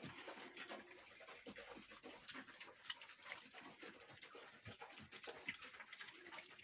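Piglets eating fresh-cut grass: faint, irregular crunching and rustling as they chew and nose through the pile.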